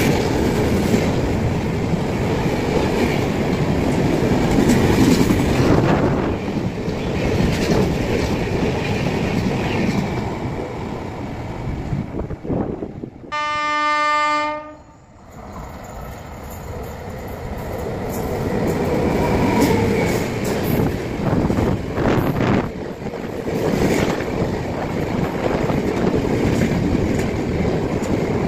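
Express train coaches rushing past at speed, wheels clattering over the rail joints. About halfway through the rumble breaks off and a locomotive horn sounds one steady blast of about a second and a half, then the rumble of the approaching Jan Shatabdi Express grows until its coaches clatter past at speed.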